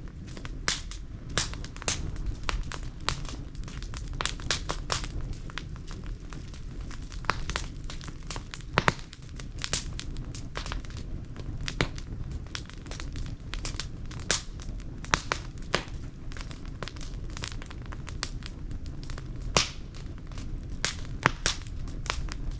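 Wood fire burning in a washing machine drum, crackling with irregular sharp pops over a steady low rumble of the flames.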